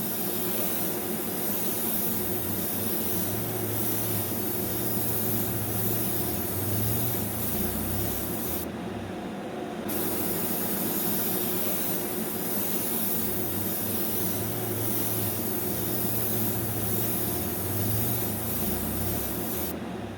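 Steady spraying hiss of compressed air with a low hum underneath. The high part of the hiss drops out for about a second near the middle.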